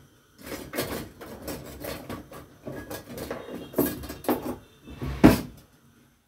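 Irregular clatter and knocks of kitchen dishes and utensils being handled, with the loudest knock about five seconds in, then stopping.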